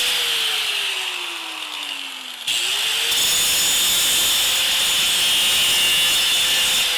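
Power tool cutting the threads off a 3/8-inch bolt. The motor's whine falls in pitch over the first couple of seconds, jumps back up with a louder hiss about two and a half seconds in and holds steady, then starts to fall again near the end.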